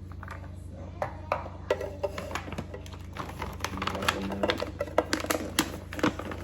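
Quick, irregular clicks and taps, coming thicker after about two seconds, over a steady low hum.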